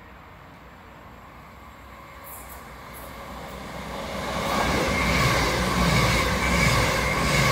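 CrossCountry Class 221 Super Voyager diesel train approaching and passing through at speed, growing louder from about three seconds in: a low engine drone under the rush of wheels on rail, with a high steady whine.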